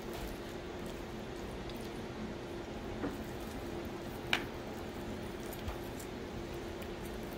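Quiet chewing and soft, wet mouth sounds while eating, over a steady low hum. There is a small click about three seconds in and a sharper click, the loudest sound, a little after four seconds.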